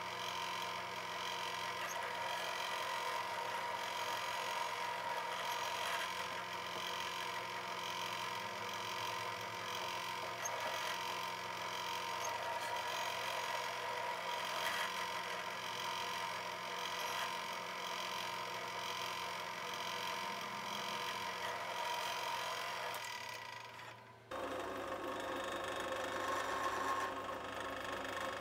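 Drill press running steadily, its spindle drilling into a hand-held metal plate. The machine gives a steady whine with several held tones. A little after 24 seconds the sound dips for a moment, then changes abruptly to a different steady running tone as the cutter works a thick metal block.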